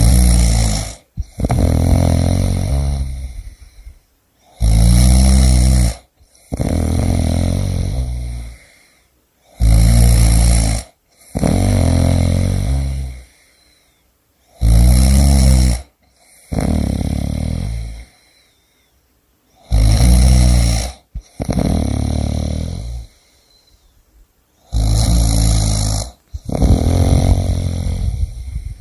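A person snoring steadily, about six breaths in a row, each a short loud snore followed by a longer, softer one, repeating about every five seconds.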